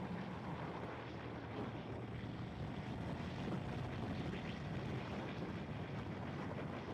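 Ducati Streetfighter 848's L-twin engine running at a steady cruising speed, with wind noise on the microphone.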